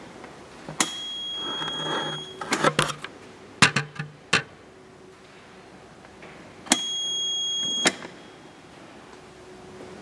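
Forklift's electronic warning buzzer sounding two high-pitched beeps, one about a second and a half long and one about a second long, with several sharp clicks of its switches and controls in between. The forklift's electrics still have power.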